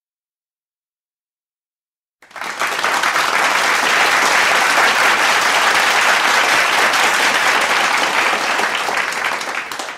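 About two seconds of silence, then a crowd applauding steadily, easing off slightly near the end.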